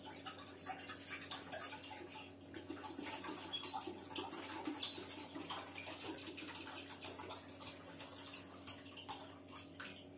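Milk pouring from a carton into a stainless steel saucepan.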